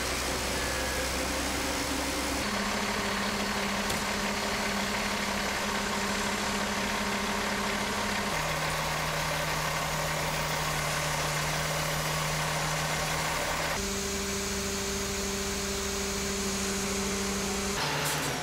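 Heavy diesel engines of a mobile crane and semi-trucks running steadily with a low hum, the pitch changing abruptly several times.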